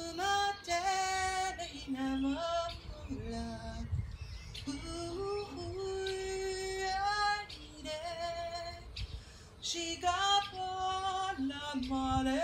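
Music with a woman singing a slow melody in long held notes.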